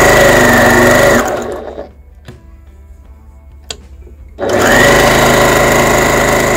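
Janome HD9 straight-stitch sewing machine stitching through calico in two bursts, with a steady motor whine that rises as each burst starts. It is running at a raised speed rather than its lowest setting. The first burst stops just over a second in, and the machine starts sewing again about four and a half seconds in.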